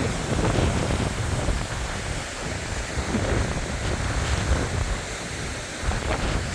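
High hurricane winds buffeting the microphone: a gusting, rumbling roar of wind noise that dips a little near the middle and toward the end.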